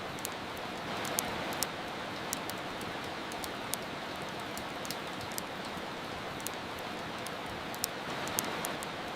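Steady rain hiss, with the sharp, irregular crackles and pops of a wood fire.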